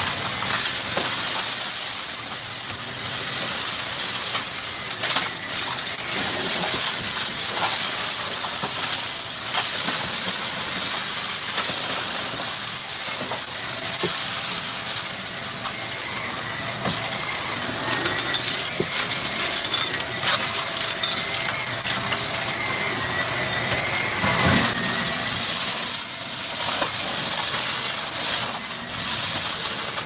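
Shark Rotator upright vacuum running with a steady high hiss as it sucks up small hard debris from carpet. The bits crunch and rattle up through it in a constant stream of clicks.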